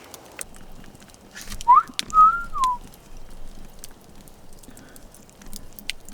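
A brief whistled tone, about a second long, that sweeps up, holds, then glides down, with scattered light clicks around it.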